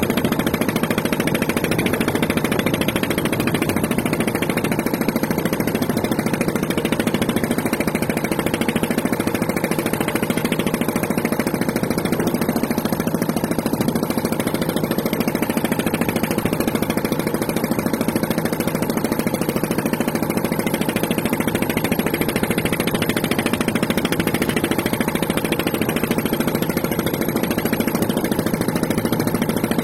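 A motor or engine running steadily at an even pitch, with no change in speed.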